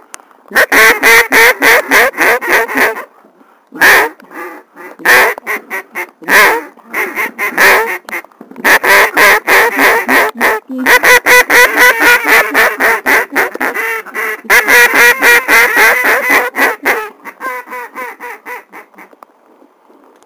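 Duck call blown hard close by: loud, rapid strings of quacks in several runs, tailing off near the end, calling to ducks over the water.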